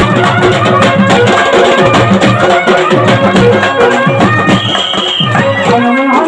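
Live Telugu folk kolatam music: drums beating a steady rhythm under a harmonium melody, with a brief high held note a little under five seconds in.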